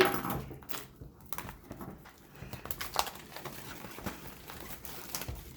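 Plastic shrink wrap on a hockey card box being cut open and crinkled as it is pulled off, in scattered faint rustles and small clicks.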